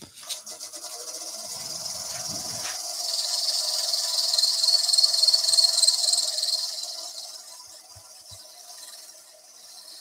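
Wood lathe running with a steady hum while abrasive paper is held against the spinning wooden spindle, making a hiss. The hiss builds over the first few seconds and eases off after about seven seconds.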